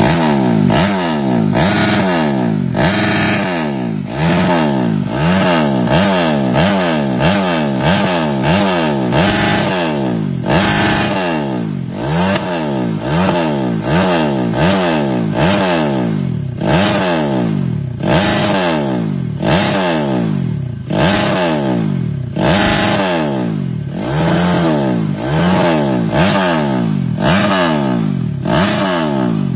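Bored-up engine revved in quick repeated throttle blips: its pitch rises and falls back a little more than once a second.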